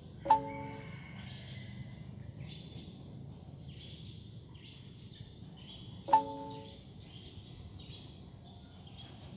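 Faint birds chirping in the background over a low steady hum, broken twice, about six seconds apart, by a sudden sharp knock that rings briefly with a clear pitch.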